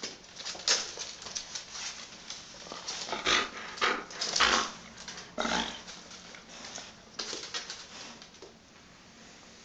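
Pets scrambling on a wooden plank floor while chasing a laser dot: a run of short scuffs, claw skitters and thumps. They come thickest and loudest in the middle, then thin out and fade near the end.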